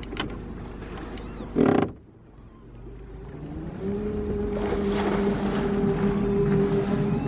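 Motorboat engine that drops low about two seconds in, then speeds up with a rising pitch and settles into a steady run, over the rush of water along the hull. A short loud bump comes just before the engine drops.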